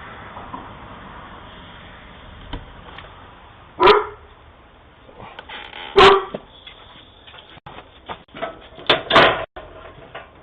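A dog barking: about four short single barks, the last two close together, over a low steady hiss.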